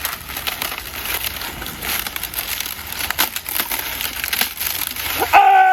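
Steady crackling, crinkling noise with many small clicks, which cuts off near the end as a voice cries out.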